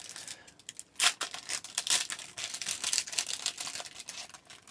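Trading cards and their pack wrappers being handled: crinkling and rustling with quick small clicks and snaps of card against card, loudest about a second in.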